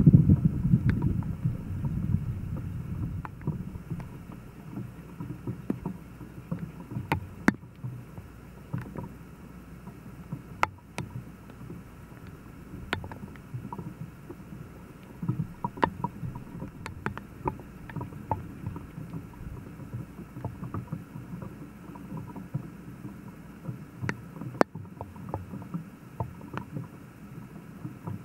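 Light clicks and scrapes of a spoon and handling against a small camp-stove pot, scattered irregularly, over a low steady rumble that is loudest in the first couple of seconds.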